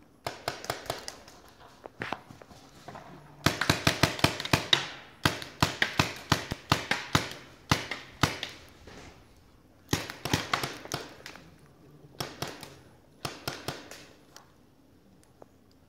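Paintball markers firing in rapid volleys of several shots a second, in bursts broken by short pauses.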